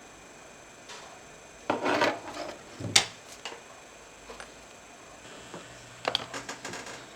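Parts being handled during laptop disassembly: rustling and small knocks, one sharp knock about three seconds in, and a quick run of clicks near the end.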